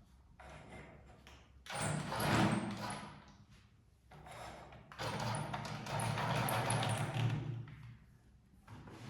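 Remote-control toy train running on its track: a motor hum and the rattle of wheels on the rails. The sound swells twice, about two seconds in and again from about five to nearly eight seconds, and fades in between.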